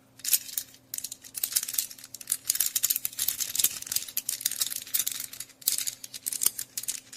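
Soroban (Japanese abacus) beads being flicked rapidly along their rods: a dense, fast clatter of small sharp clicks, with brief lulls about a second in and near the end.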